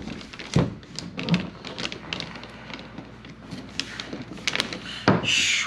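Plastic spreader clicking, tapping and scraping on a mixing board as body filler putty and hardener are folded together. There is a sharper knock about half a second in and a longer scrape near the end.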